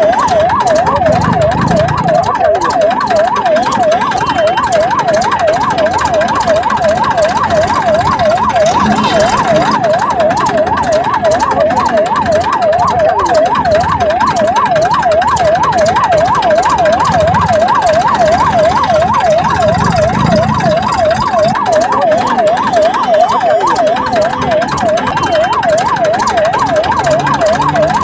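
Electronic siren in a fast yelp, its pitch sweeping up and down several times a second without a break.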